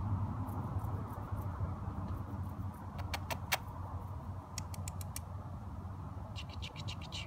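Outdoor background of a steady low rumble, with three quick clusters of short, high-pitched chirps or ticks: one about three seconds in, one around five seconds and one near the end.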